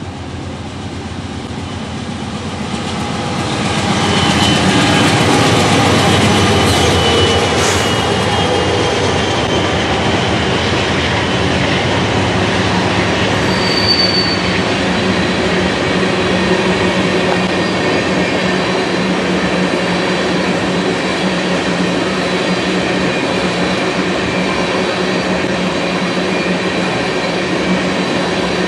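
A GE Dash 9-40CW diesel locomotive approaches and passes, growing louder over the first few seconds. A long string of tank cars then rolls by with a steady rumble and clatter of wheels on rail, and a brief high wheel squeal about halfway through.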